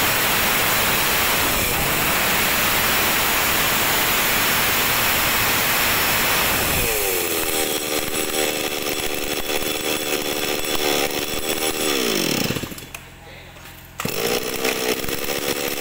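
Stihl MS260 two-stroke chainsaw (50.2 cc) running at full throttle, then dropping back to a steady idle about seven seconds in. Near the end its engine winds down and falls quiet, then fires again about a second and a half later and settles back to idle.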